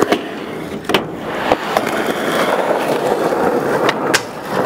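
Skateboard wheels rolling steadily over asphalt, with a few sharp clacks of the board. Near the end a louder smack as the board lands onto a curved ledge, then the trucks grinding along it.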